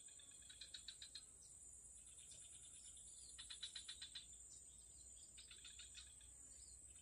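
Faint outdoor ambience: a steady high-pitched insect drone, with three short trains of rapid chirps, about ten a second, near the start, in the middle and near the end.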